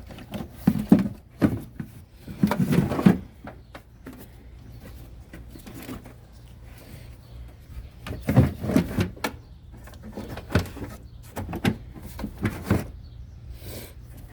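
Knocks and clatter of a plastic cover plate being worked into place by hand in a truck's engine bay, in irregular bursts. There is a busy spell near the start, then quieter handling, then more knocks in the second half, over a steady low hum.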